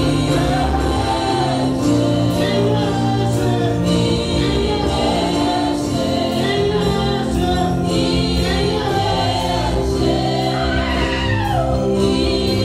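Live gospel worship singing: a group of voices with lead singers on microphones over a band with steady low held notes and an even percussion beat.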